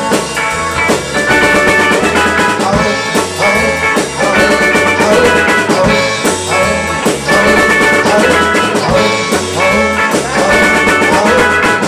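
A live rock band playing: electric guitars and bass guitar over a drum kit keeping a steady beat.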